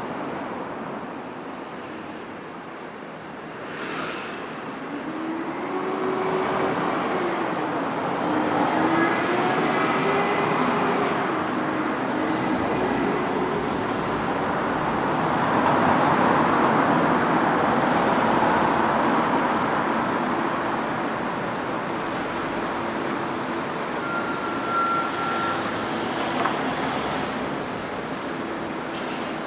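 Steady city road traffic, with the hiss of tyres and engines swelling as vehicles pass one after another. Engine pitch rises and falls in the first half, and there are a couple of brief clicks.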